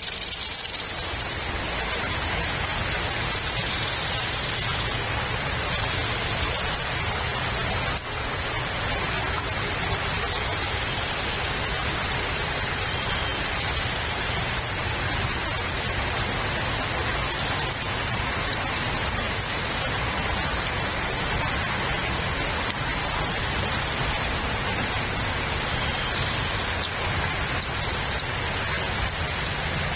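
Steady rain, an even hiss without a break.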